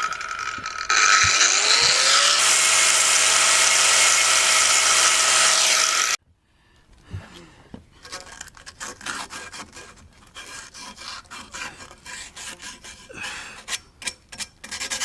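A small power tool runs steadily for about five seconds, its pitch rising as it comes up to speed, then stops abruptly. It is followed by rapid, irregular hand sanding strokes smoothing the freshly cut end of the bait pump tube.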